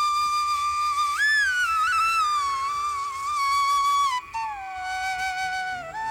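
Background music: a solo flute melody. It holds one long note, then slides and ornaments its way down through a falling phrase, with a brief breath about four seconds in.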